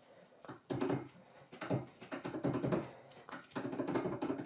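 Brass hammer head being worked onto the tenon of a bog oak handle: wood rubbing and scraping in the brass eye in about five short, uneven strokes.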